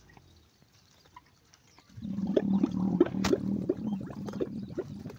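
A dromedary camel gives a low, pulsing growl, starting about two seconds in and lasting about three seconds.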